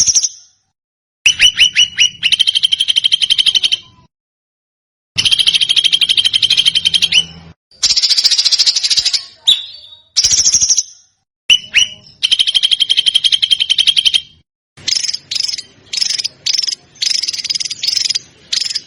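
Songbird song made of dense, rapid-fire trills, the fast 'tembakan' phrases used as masteran for training competition birds. The trills come in bursts of about two seconds with clean silent gaps between them, and the last few seconds turn to shorter notes repeated in quick succession.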